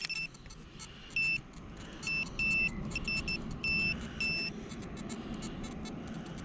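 Handheld metal-detector pinpointer beeping in short, uneven, high-pitched beeps as its tip is worked through loose soil in a dig hole, signalling metal close by. The beeps come in irregular bursts through the first four seconds or so, then stop.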